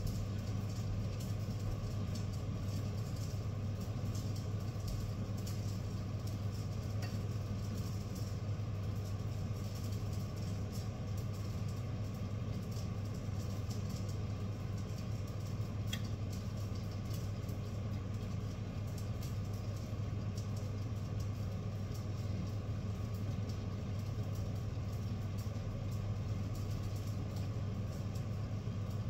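Steady low machine hum, unchanging throughout, with faint scattered crackles above it.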